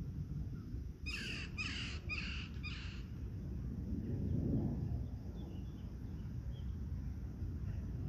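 A crow cawing four times in quick succession, harsh and evenly spaced. A low rumble swells briefly about halfway through, and a few faint small-bird chirps follow.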